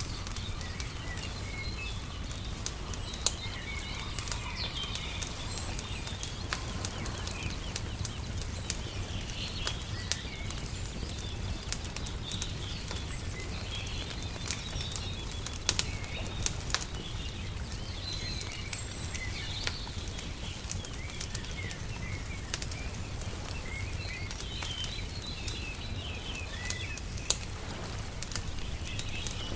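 Wood fire crackling with frequent sharp pops, a few of them louder, over a steady low rumble, while small birds chirp.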